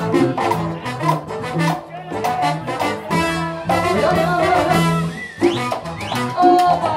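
Live Latin dance band playing an instrumental passage: a repeating bass line and steady percussion under a held melodic lead.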